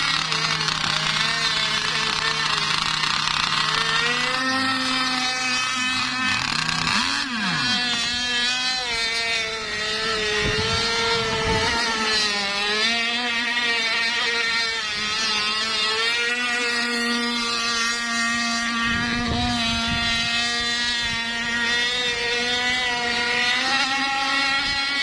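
Radio-controlled speedboat's motor running at speed, with a pitch that rises and falls as the throttle changes.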